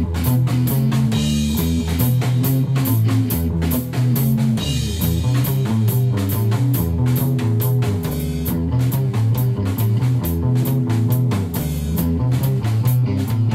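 Rock music: electric guitar and bass guitar over a drum kit keeping a steady beat.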